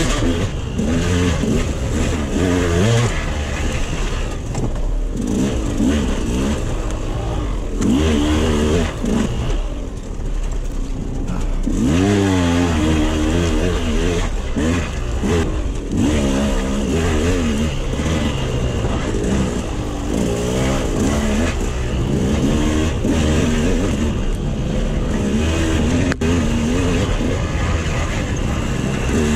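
KTM 200 XC-W's two-stroke single-cylinder engine revving up and down again and again under hard throttle changes, its pitch rising and falling every second or two, with a few sharp knocks along the way.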